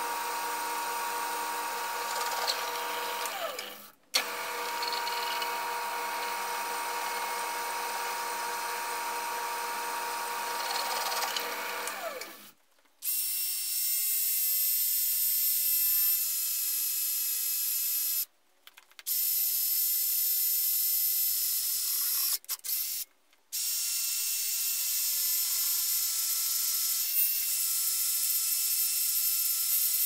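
A drill press runs with a steady motor hum as it drills aluminum, winding down near 4 s and again near 12 s. After that a Milwaukee cordless drill drills into aluminum with a higher, steady whine, stopping briefly a few times.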